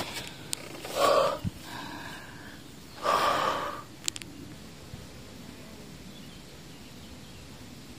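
A person's two heavy, breathy exhalations, about a second in and again about three seconds in, as from exertion, followed by a short click and then a steady faint outdoor hiss.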